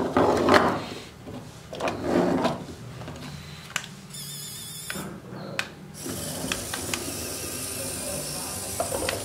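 Homemade RC truck chassis running under its own small electric drive motor as it drives off, a small motor and gear noise with a steady high hiss from about six seconds in.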